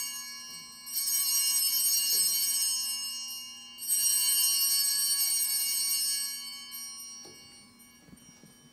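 Altar bells rung at the elevation of the chalice after the consecration. The last of one ring is fading, then the bells are shaken twice more, about a second in and about four seconds in. Each time a cluster of bright, high tones rings on and fades away over a few seconds.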